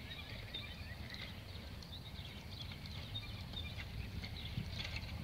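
Small birds chirping in short, scattered calls over a low, steady outdoor rumble.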